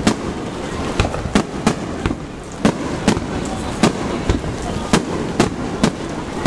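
Aerial firework shells bursting in a rapid, uneven series of sharp bangs, roughly two a second.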